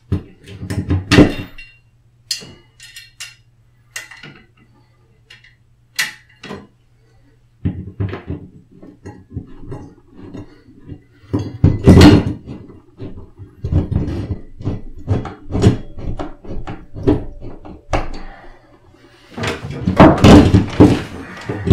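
Metal wall bracket being held against a wall and screwed in by hand with a screwdriver: irregular clicks, knocks and scrapes in bursts, with quieter gaps between them.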